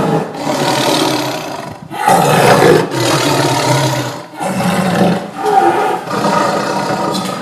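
Tiger roaring and growling over and over, deep throaty calls with short breaks between them.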